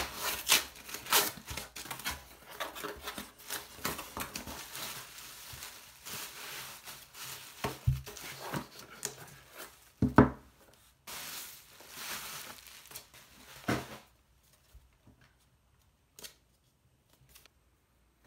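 Paper and cardboard shipping packaging being torn open by hand, with dense tearing and crackling and two louder knocks around the middle, followed by plastic bubble wrap crinkling. The last few seconds are nearly quiet apart from a few small taps.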